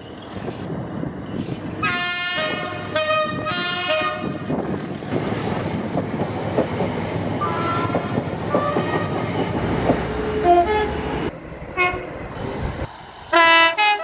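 Train horns: three loud blasts in quick succession about two to four seconds in, fainter horn notes over the rumble of a passing train through the middle, and another loud blast near the end.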